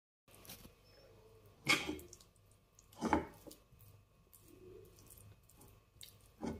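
A spatula stirring a moist chicken, vegetable and cream mixture in a non-stick frying pan: a few short wet scrapes and squelches, two about a second and a half apart, then another near the end.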